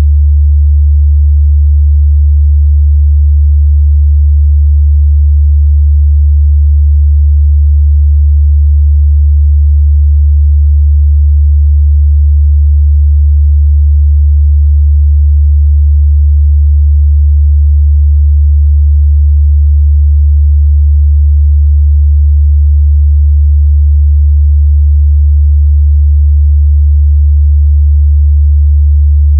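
A steady, loud 73 Hz sine-wave test tone, one unbroken low hum that holds the same pitch and level throughout.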